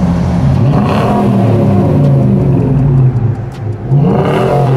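Exhaust of a 2021 Nissan Titan's 5.6-litre V8, run through true duals with an X-pipe and Flowmaster Super 10 mufflers, being revved: the pitch climbs about half a second in and holds, eases off briefly, then climbs again near the end.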